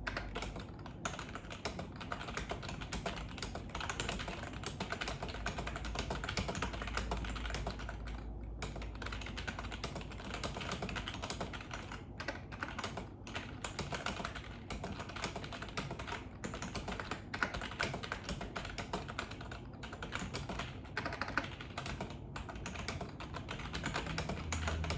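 Fast, continuous typing on a membrane computer keyboard, a steady patter of keystrokes with a few brief pauses, during a typing speed test run at about 80 words per minute.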